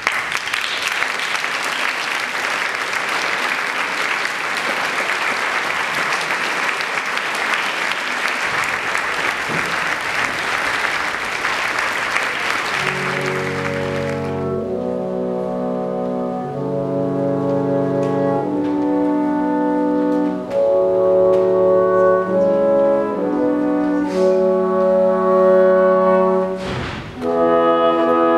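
Symphony orchestra music: a steady noisy wash with no clear notes for about the first half, which cuts off sharply, then the brass section playing slow, sustained chords that change about every second.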